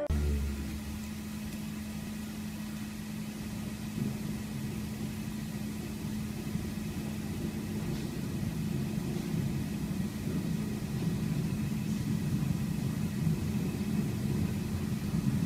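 Small dogs play-wrestling, with a low, continuous growl that gets a little louder in the second half.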